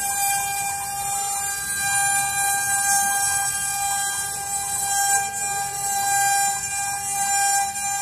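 CNC wood router's spindle running with a steady high whine while the bit carves a wooden relief panel, with a hiss of cutting over it.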